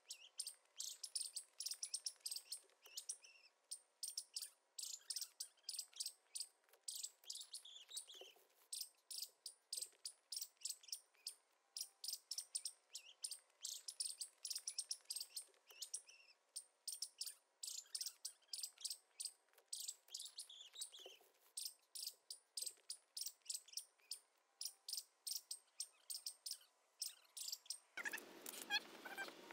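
Faint small birds chirping and twittering: a steady stream of quick, high-pitched chirps.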